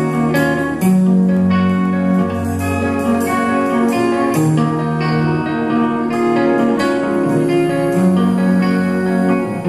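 Live rock band playing an instrumental passage: electric guitars, bass and keyboard holding sustained chords that change every second or so.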